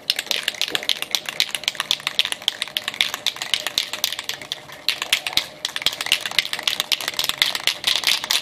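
Dupli-Color sandable primer spray can shaken hard to mix the paint before spraying, its mixing ball rattling in quick clicks, with a short lull about halfway through.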